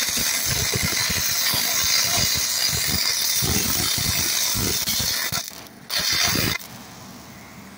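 Self-shielded flux-cored welding arc (Lincoln Innershield NR-311 wire, 5/64 in) crackling and hissing steadily while running a full-penetration weld on a steel beam's bottom flange. The arc breaks off about five and a half seconds in, strikes again briefly, and stops about a second later.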